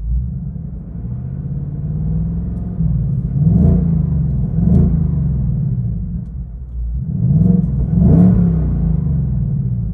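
2024 Ford Mustang Dark Horse's naturally aspirated 5.0-litre Coyote V8 idling in Park, revved in two pairs of quick throttle blips, about three and a half seconds in and about seven and a half seconds in, each rising and falling back to idle. Heard from inside the cabin.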